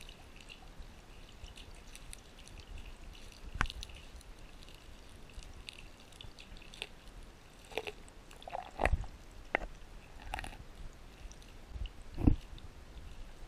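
Underwater sound in a koi pond: a low steady haze of water noise with scattered clicks, pops and dull knocks. The loudest knock comes about twelve seconds in.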